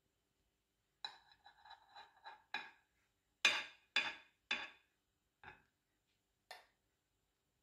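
A metal spoon clinking against a stainless steel bowl and a ceramic plate as rice is spooned out: a run of light taps, then three sharper ringing clinks about half a second apart, then two fainter ones.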